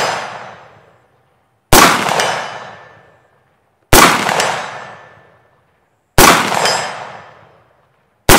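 IWI X95 bullpup rifle firing 69-grain 5.56 mm rounds in slow aimed shots, four about two seconds apart, each crack trailing off in a long echo over about a second.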